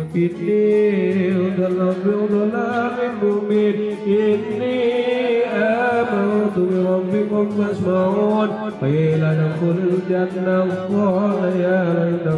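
A group of men chanting an Arabic religious recitation in unison, many voices holding long drawn-out notes together. There is a brief break just before nine seconds in, where a new phrase starts.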